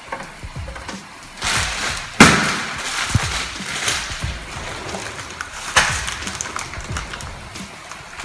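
Knocks of kitchenware being handled at the stove: a brief rush of noise, then a loud sharp knock about two seconds in and a second knock near six seconds.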